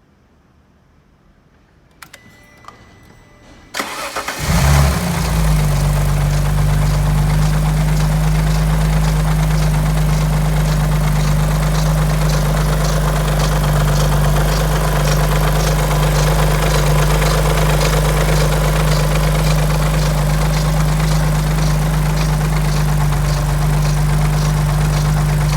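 Alfa Romeo 147 GTA's 3.2-litre V6 24-valve engine started from cold: a few clicks, brief cranking, then it catches about four seconds in and settles into a steady idle with a rhythmic ticking. This cold-only noise from the front of the engine is one the mechanic calls a bad sign.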